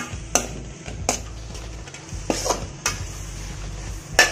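Spatula scraping and knocking against a steel kadai as scrambled egg and shredded vegetables are stir-fried, with a faint sizzle of frying underneath. There are about half a dozen sharp scrapes at uneven intervals, the loudest near the end.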